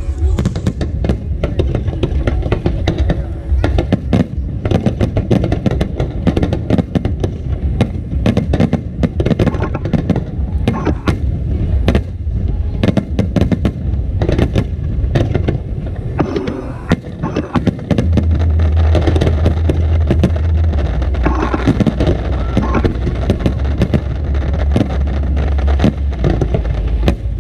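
Fireworks bursting and crackling in rapid, irregular succession, with music and voices underneath. A steady low rumble grows louder about two-thirds of the way in.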